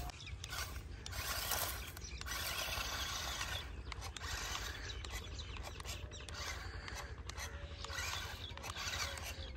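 Battery-powered remote-control stunt car's small electric motors and plastic gears whirring as it drives up a grassy embankment through dry straw, the sound rising and falling with the throttle.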